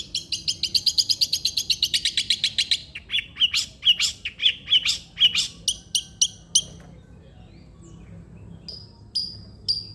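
Long-tailed shrike singing: a fast run of sharp high notes, about ten a second, slows into separate single notes, then after a pause of about two seconds it gives evenly spaced sharp notes about two a second.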